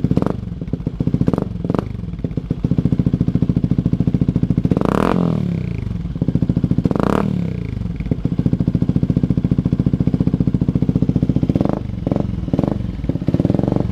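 Yamaha WR125X's single-cylinder four-stroke engine idling through an Akrapovic exhaust and being revved: a few quick throttle blips, then two longer revs about five and seven seconds in that climb and fall back to idle, and more blips near the end.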